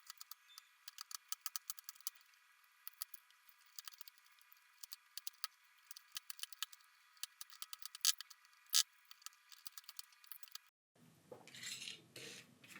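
Faint, rapid, irregular clicks and scrapes of a tool picking and scraping broken screen glass out of a phone's plastic frame. The sound is thin and high, with the low end missing, until about eleven seconds in, when it becomes fuller.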